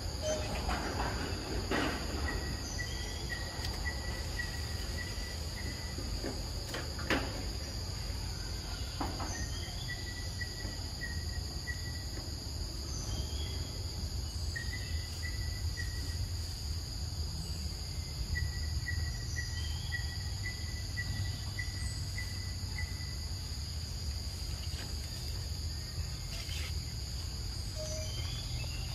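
Forest insects making a steady high drone, with runs of short, evenly spaced chirps at about two a second that come and go, over a low steady rumble. A few soft knocks, the sharpest about seven seconds in.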